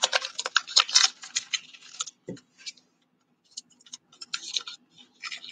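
Foil wrapper of a football trading-card pack crinkling and crackling as it is torn open and the cards slid out, in two spells with a short lull in between.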